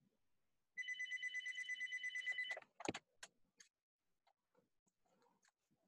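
An electronic telephone-style ring, a rapidly pulsing trill lasting a little under two seconds, that cuts off suddenly. Right after it comes a sharp knock, followed by a couple of fainter clicks.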